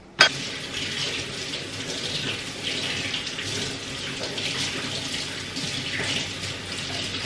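Kitchen tap running steadily, water splashing onto a bunch of arugula leaves being rinsed under it. A sharp knock just after the start marks the tap coming on.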